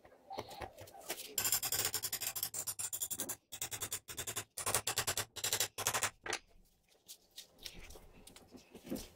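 Abrasive scraping strokes worked by hand on a knife in progress: a quick run of short rasping strokes, then several slower, separate strokes.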